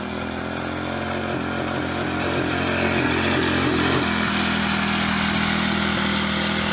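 Lawnmower engine running at a steady speed while it drives a homemade go-kart along, its hum holding an even pitch.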